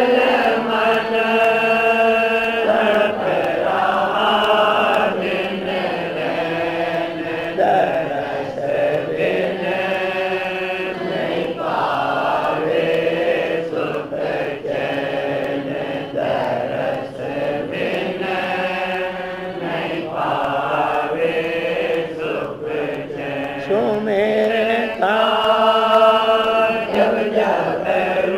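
A devotional hymn (shabad) sung slowly in a chant-like style, with long notes held for a few seconds each in phrases separated by short breaks.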